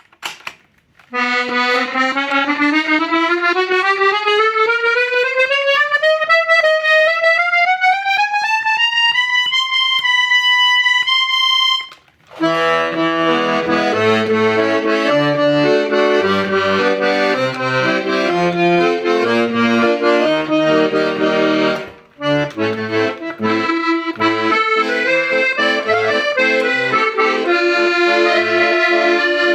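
Hohner Concerto 1 accordion: a single line of notes climbing steadily upward over about two octaves to a held high note, then, after a short break, a tune played with left-hand bass notes and chords. The playing stops briefly about 22 seconds in and then goes on.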